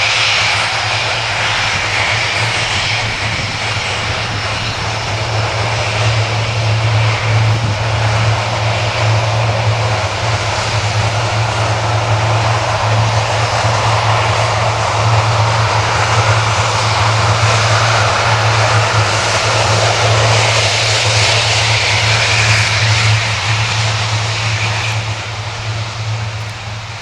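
Jet noise from a Boeing C-17A's four turbofan engines: a loud, steady rush over a low drone. It builds after the first few seconds and starts to fade near the end.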